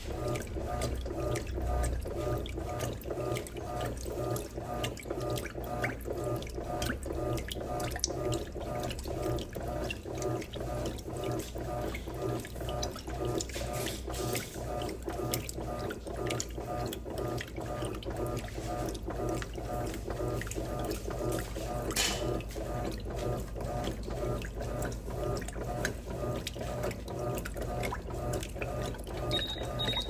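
Electrolux Turbo Economia top-loading washing machine in its wash cycle, water sloshing in the tub in a steady, even rhythm as the load is agitated.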